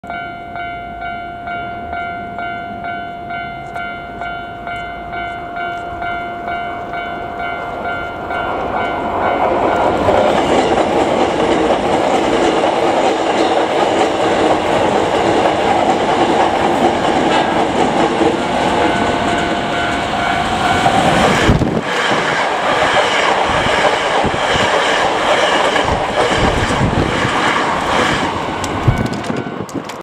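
Level-crossing warning bell dinging in a steady pulse, about one and a half strikes a second. From about 9 s two Hankyu 9300 series electric trains pass over the crossing in opposite directions. Their wheels clatter over the rail joints and drown out the bell until the noise falls away near the end.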